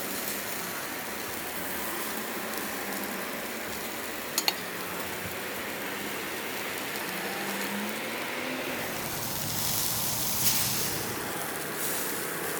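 Steak slices sizzling on a charcoal grill, a steady hiss with an occasional sharp pop.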